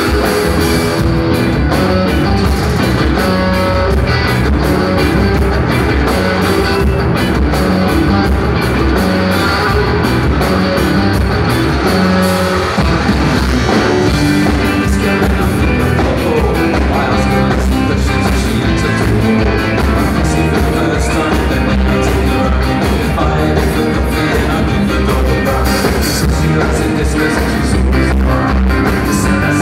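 Live rock band playing loud and unbroken: electric guitars, keyboards and drums, with singing over them.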